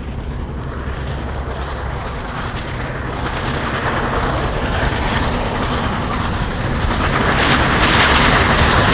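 Union Pacific Big Boy 4014, a 4-8-8-4 articulated steam locomotive, rumbling as it approaches under steam, growing steadily louder.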